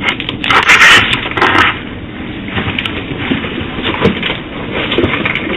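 Loud scraping, rustling and clattering picked up by a doorbell camera's narrow-band microphone as a cooler full of drinks is grabbed and hauled away. The busiest clattering comes in the first couple of seconds, followed by scattered knocks.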